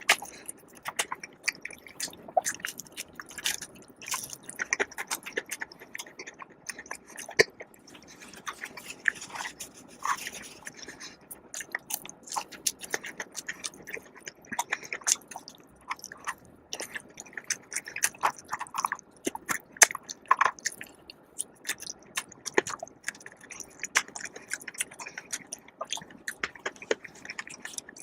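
Close-miked chewing and biting of food: a dense, irregular run of small clicks, smacks and crunches.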